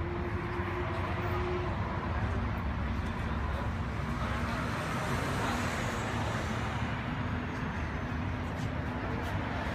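Steady low background rumble with a faint hum that drops in pitch about two seconds in.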